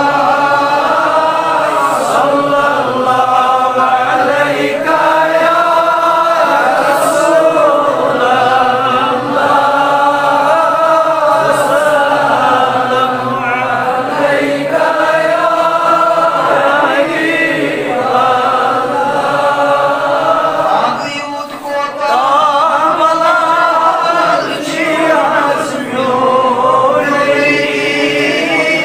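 Durood, the Islamic salutations on the Prophet Muhammad, chanted in long melodic phrases by male voices, with a short break about two-thirds of the way through.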